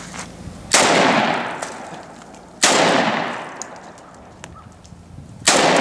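Three shots from a Saiga 12 semi-automatic 12-gauge shotgun, about two seconds apart, each followed by a long fading echo.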